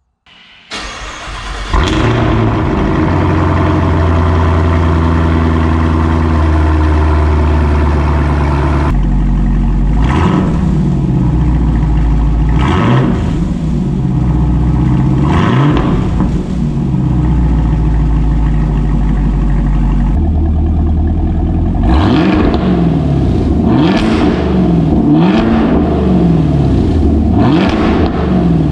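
Chevrolet Camaro ZL1 1LE's supercharged 6.2-litre LT4 V8 cranks and fires up from cold through a freshly installed MBRP 3-inch catback exhaust, then settles into a steady high cold idle. It is revved three times around the middle, then blipped in a quicker run of revs over the last several seconds.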